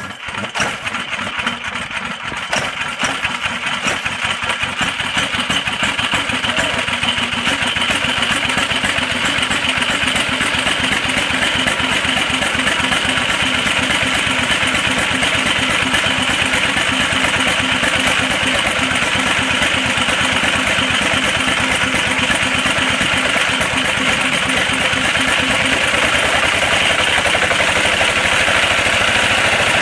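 1964 Yongxing Machinery kerosene engine catching and running, a rapid, even firing beat that grows louder over the first several seconds and then settles into a steady run.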